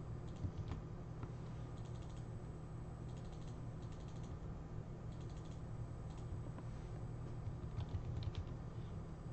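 Typing on a computer keyboard: short runs of key clicks at irregular intervals, over a steady low hum.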